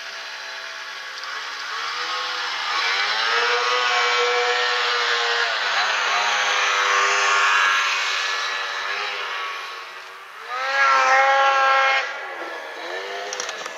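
Snowmobile engine revving and pulling away through deep snow, its pitch rising and falling with the throttle. It eases off about ten seconds in, then gives a short, loud rev before settling.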